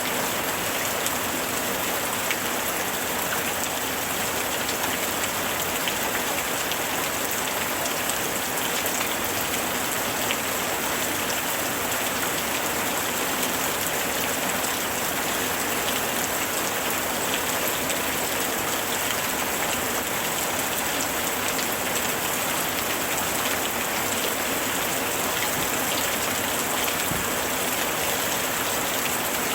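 Steady, even summer rain falling, a dense hiss with many small drop ticks on surfaces.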